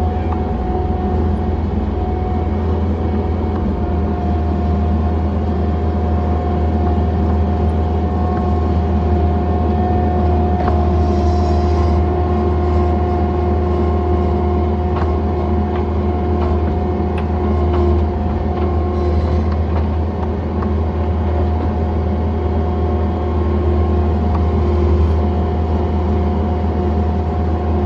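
John Deere 317 skid steer's diesel engine running steadily, with a steady whine held over the engine hum.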